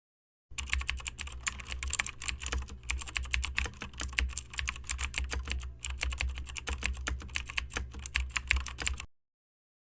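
Rapid, irregular clicking over a low steady hum, starting about half a second in and cutting off abruptly near the end.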